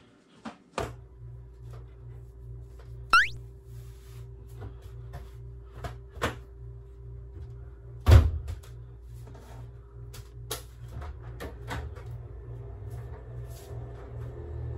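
Household door and handling noises: scattered clicks and knocks, a short sharp squeak about three seconds in and a heavy thud about eight seconds in as the bathroom door is opened, over a low steady hum that starts about a second in.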